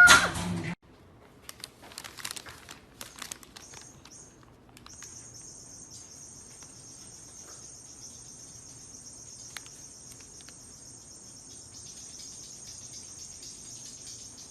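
Insects chirring in one steady, high-pitched trill that starts about five seconds in. It follows a loud cry that cuts off right at the start and a few faint clicks and knocks.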